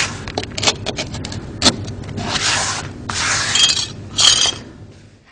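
Hand tools working on a welded vinyl floor seam: a run of sharp clicks and taps, then three scraping strokes of about half a second each.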